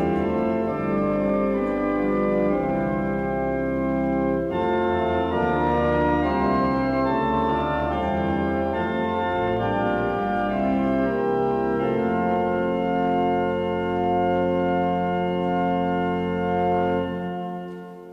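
Church organ playing sustained chords, moving to a long held final chord about twelve seconds in that is released near the end and dies away.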